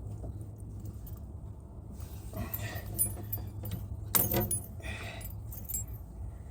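Small metal objects jangling and clicking in a few short clusters, the loudest a little past the middle, over a steady low hum.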